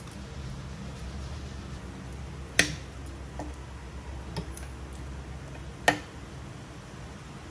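A metal fork and spoon click sharply against a plate twice, with a few fainter ticks between, over a steady low rumble of wind from an electric fan blowing on the phone's microphone.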